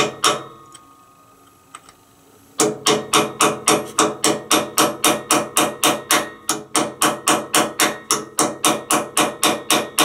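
A hammer striking metal in a steady run of blows, about three a second, starting about two and a half seconds in after a short lull. It is driving a tool into the stuck, damaged drain plug of a Subaru differential as a last resort to get it out.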